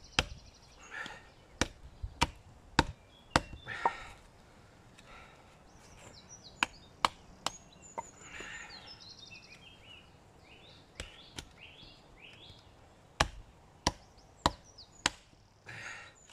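A baton repeatedly striking the spine of a small bushcraft knife (9 cm blade, 3 mm thick), driving it through a knot in a dry oak branch. It gives about sixteen sharp knocks in irregular runs, with a lull in the middle. The knife is being forced to its limit against the knot's fibres, under very heavy stress on the blade.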